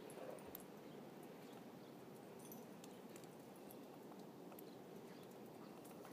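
Near silence: a faint, steady background hiss with a few soft ticks.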